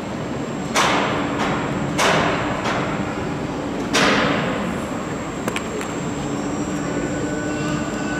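Heavy knocks of the large lifting fittings being detached from an EF65 electric locomotive body: three loud strikes, about a second in, at two seconds and at four seconds, each ringing briefly, with lighter knocks between and a couple of small clicks after, over a steady workshop hum.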